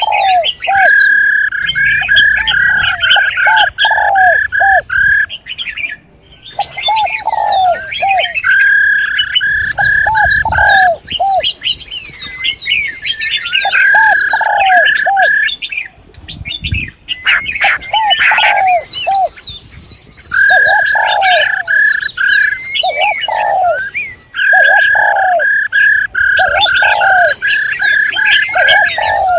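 Several songbirds calling together: fast runs of repeated chirps over high twittering, with lower arching notes, in bursts of a few seconds broken by short pauses.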